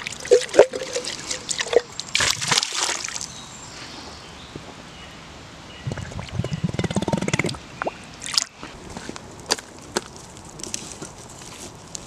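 River water splashing as a bottle is dunked into it, then gurgling for about a second and a half as the bottle fills, followed by scattered drips and small splashes.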